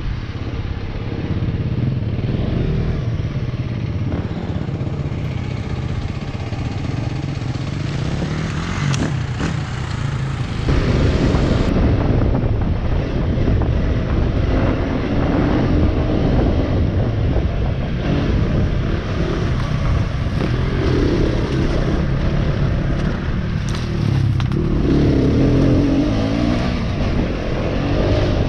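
Off-road motorcycle engine running as the bike rides a dirt trail, heard close from the rider's helmet camera. It gets louder about ten seconds in.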